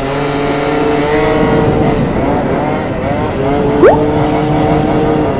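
Tuned two-stroke 70cc scooter engines running hard at high revs. The revs sag and then climb again, and one short, sharp rising rev about four seconds in marks the scooter ahead lifting into a wheelie.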